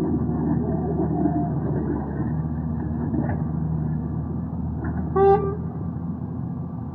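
Hyundai 220 excavator's diesel engine running steadily, with one short horn toot about five seconds in.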